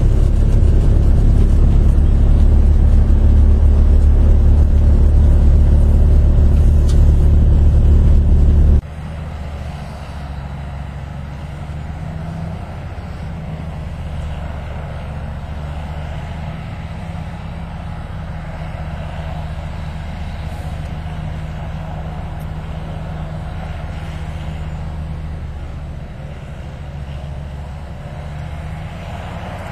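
Heavy engine of a huge snowblower running steadily under load, loud and deep at first, then dropping abruptly about nine seconds in to a quieter, steady drone.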